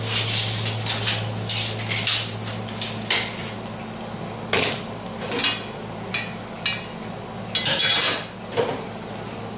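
Steel pieces being handled and knocked together in a metal shop: about a dozen irregular metallic clanks and clinks with short ringing, the busiest cluster near the end. A steady low hum runs underneath.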